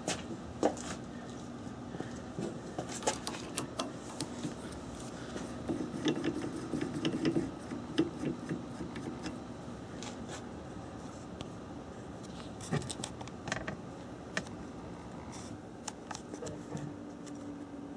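Small metal parts and hand tools handled at a metal lathe: scattered clicks, clinks and scrapes, busiest around the middle, over a steady low hum.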